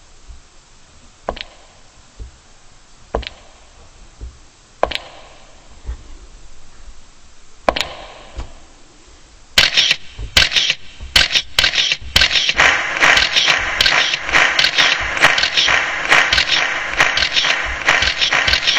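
A few single sharp taps, a second or two apart, then about ten seconds in a crowd applause sound effect starts suddenly and keeps going, dense with many small claps.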